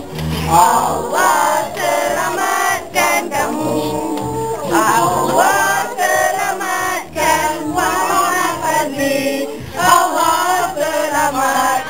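A group of adults and children singing together with hand-clapping, over a music track with a steady bass beat.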